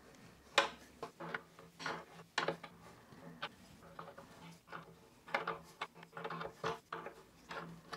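Steel open-end wrench turning a square-headed bolt out of a wooden chair seat: a string of irregular light clicks and knocks as the wrench is worked and shifted on the bolt head.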